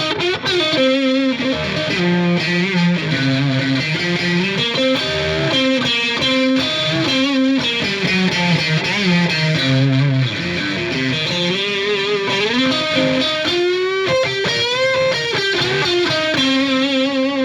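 Electric guitar, a Strat-style partscaster on its neck and middle single-coil pickups together, played through a Marshall JVM210 combo amp: a lead line of held notes with vibrato and string bends.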